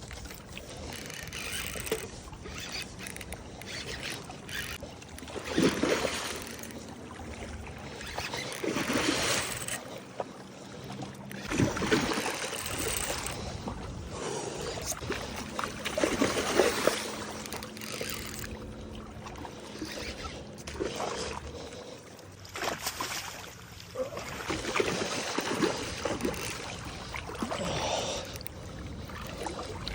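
Water splashing and sloshing in irregular surges as a hooked muskie thrashes at the side of a boat while it is being landed.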